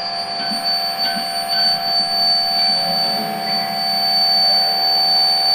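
Prepared electric guitars played through effects and amplifiers as a dense, steady drone: a loud held high tone over a lower held tone and a layer of noise and fainter tones.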